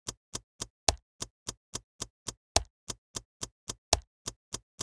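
Sharp ticking clicks, evenly spaced at about four a second, with a few louder ones among them: a ticking sound effect under an animated intro.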